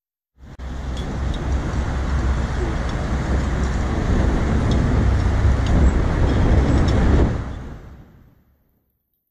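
Road traffic noise: a steady low rumble of engines and tyres. It starts abruptly about half a second in, builds slightly, and fades out near the end.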